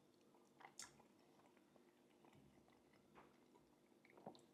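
Near silence with faint mouth sounds of chewing a forkful of macaroni cheese: a few soft smacks about a second in, around three seconds in and near the end.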